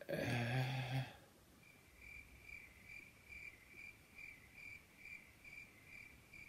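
A short low pitched sound lasting about a second, then a faint high chirp that repeats about twice a second, evenly and without change.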